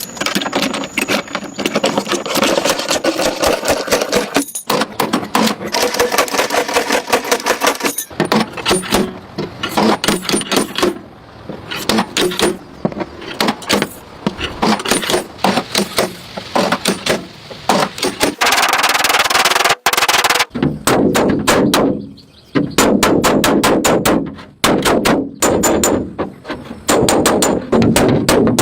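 Rapid, repeated metallic impacts in bursts with short pauses, like a tool hammering on a car's sheet-metal body panels during dent repair.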